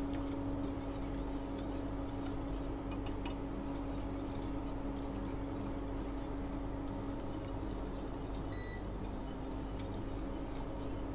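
A few faint, light clinks of a utensil against a cooking pot about three seconds in, during stirring of raspberry compote, over a steady low hum.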